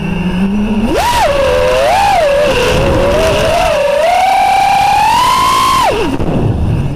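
FPV quadcopter's DYS 2206 brushless motors and propellers whining, the pitch swinging with the throttle. It starts low, jumps up sharply about a second in, wavers, climbs to a steady high pitch, then drops away suddenly near the end.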